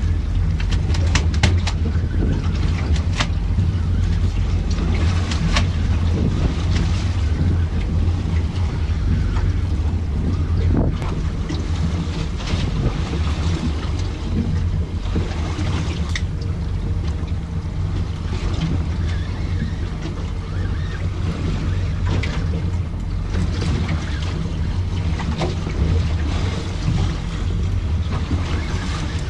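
Sounds aboard a small fishing boat at sea: a steady low hum, wind buffeting the microphone, and water against the hull, with irregular sharp knocks throughout.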